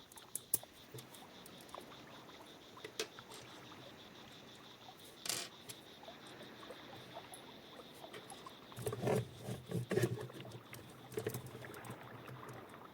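Plastic LEGO Technic parts clicking and rattling as they are handled and pressed together, with scattered light clicks and a louder cluster of knocks around nine to ten seconds in.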